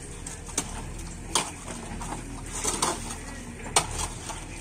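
Hand digging in wet mud and stones: several sharp metallic clanks of a hoe blade and a metal pan striking stone, about a second apart, over a low, steady wash of scraping mud.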